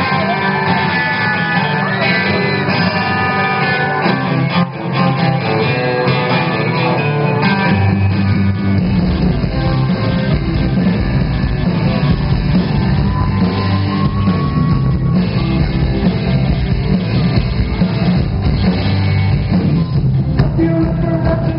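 A rock band playing live, loud and heard from among the audience, with electric guitar to the fore. The low end gets much heavier about eight seconds in as the full band comes in.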